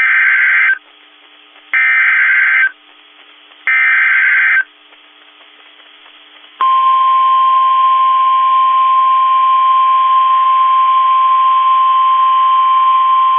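NOAA Weather Radio Emergency Alert System header: three bursts of SAME digital data, each about a second long and a second apart. About six and a half seconds in, the steady single-pitch 1050 Hz warning alarm tone begins and holds, signalling that a new tornado warning is about to be read.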